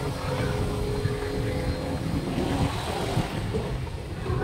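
A motor vehicle engine running close by with a steady hum that fades out about two and a half seconds in, over general street noise.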